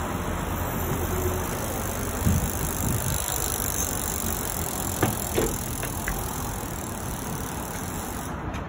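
Bicycle rolling over brick paving against a steady rush of noise, with a few sharp knocks, one about two seconds in and two close together about five seconds in, as the bike and rider meet the wall and ground in a wall ride.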